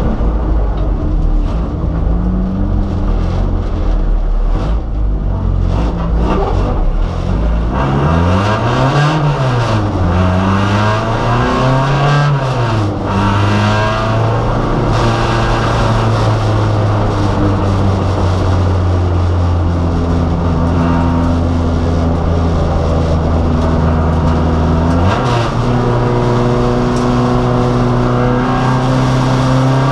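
Race car engine heard from inside the car, its revs rising and falling through gear changes, then held steady, with a sudden jump in revs about 25 seconds in.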